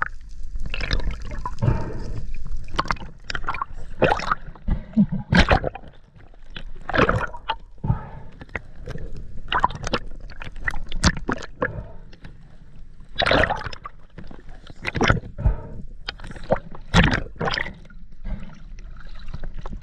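Water gurgling and sloshing around a diving camera, with irregular bursts of bubbling and splashing as it moves underwater and up through the sea surface.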